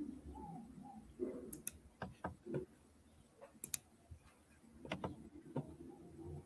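Irregular clicks of a computer keyboard being typed on, coming in small clusters with short pauses between them, picked up faintly through a video-call microphone.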